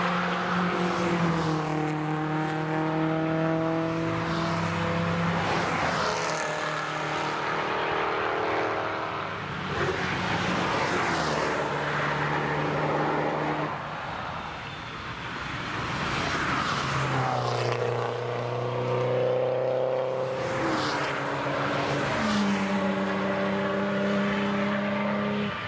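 Several cars driving past one after another through a racetrack corner, their engines running hard. Each engine note jumps and slides in pitch as the car comes by.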